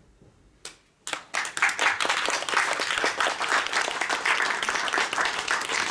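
Audience applause after a song. It opens with a single clap, then breaks out about a second in and goes on as steady clapping.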